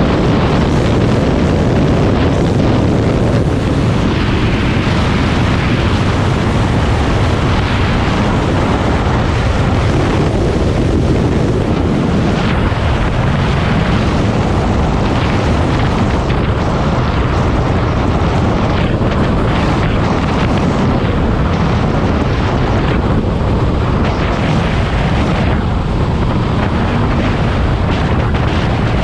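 Loud, steady wind rush on the microphone of a Honda CB500X motorcycle under way, with its parallel-twin engine running underneath.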